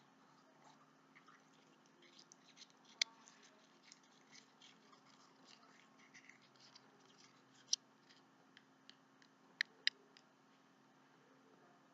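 Faint, sticky crackling and small clicks of slime being worked by hand, with four sharp clicks, the last two close together near the end.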